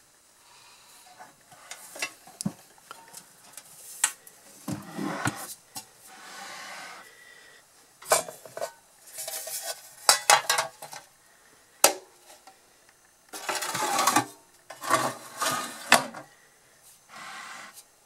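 A vintage Knapp Monarch Redi-Baker chrome toaster oven and its metal baking pan being handled: irregular metal clinks and clacks mixed with short scrapes.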